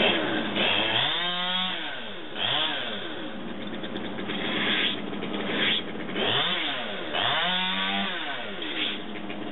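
Chainsaw running and revving up and back down twice, once about a second in and again around six seconds in.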